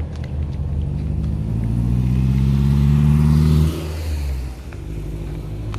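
A road vehicle's engine accelerating, its pitch rising and growing louder for about three seconds before it cuts off sharply, over a steady low rumble.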